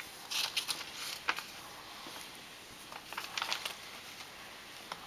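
Pages of a picture book being handled and turned, a few short papery rustles and flicks: a cluster about half a second in, another just over a second in, and another around three seconds in.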